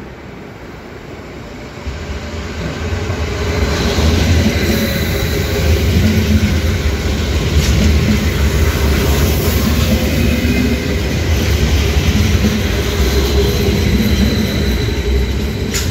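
Electric multiple-unit passenger train running through a station at speed. The rumble of wheels on rails rises about two seconds in and stays loud and steady as the carriages pass close by.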